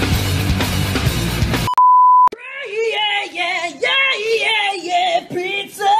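Loud, dense music cuts off abruptly, followed by a single half-second electronic beep. Then a high voice sings a wavering, gliding tune.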